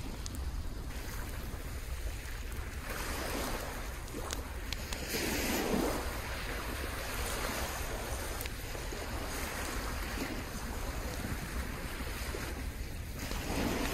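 Small sea waves washing onto a sandy shore, rising and falling in surges, with a steady low rumble of wind on the microphone.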